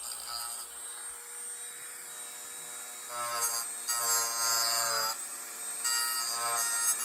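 Electric rotary tool carving a pinewood block, with a steady high whine. It gets louder in on-and-off stretches from about three seconds in as the bit bites into the wood.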